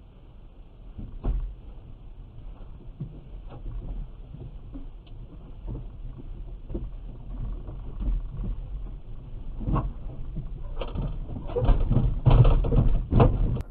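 Knocks and thumps against a car, picked up by its dashcam over a low steady hum. They turn into a rapid run of louder bangs over the last three seconds.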